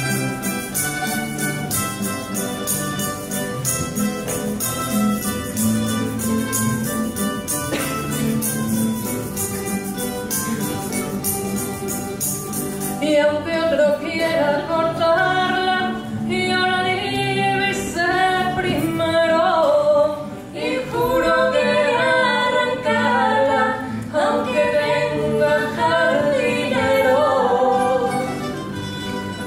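Spanish tuna ensemble of women playing guitars and bandurrias with fast, steady strumming. About 13 seconds in, women's voices come in singing the tune over the strings.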